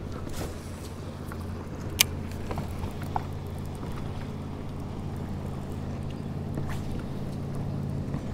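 A boat's motor running with a steady low hum, with a single sharp click about two seconds in.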